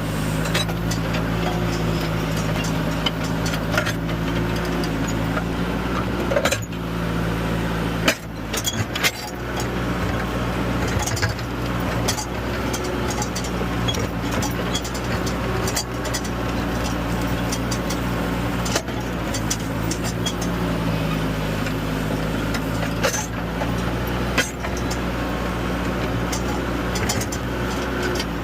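Bobcat 863G skid-steer loader's diesel engine running steadily while working, heard close up from the operator's position, its pitch shifting a little with load. Several sharp knocks and cracks stand out over it.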